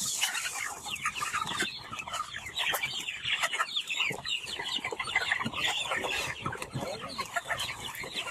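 A large flock of broiler chickens in a poultry house clucking and squawking all at once, a dense unbroken chatter of short calls with many sharp little ticks mixed in, the excited din of birds at their morning feed.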